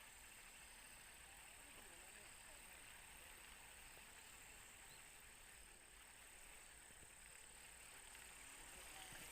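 Near silence: faint outdoor background hiss with a thin, steady high tone.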